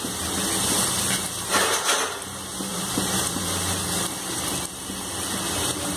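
Green chilli, ginger and garlic paste sizzling in oil in an aluminium kadai on a gas burner, frying until its raw smell is gone: a steady hiss with a low hum beneath.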